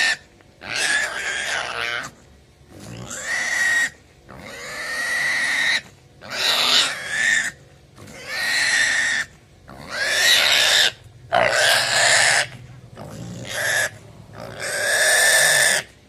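A piglet squealing loudly while held down for castration: about ten piercing squeals, each about a second long, with short breaks for breath between them.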